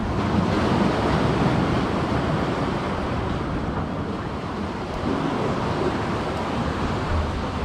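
Sea surf washing against the rocks of a jetty, a steady rushing with wind on the microphone.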